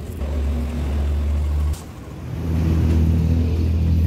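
A vehicle engine running, a loud, steady low drone that breaks off abruptly just under two seconds in and comes back about half a second later.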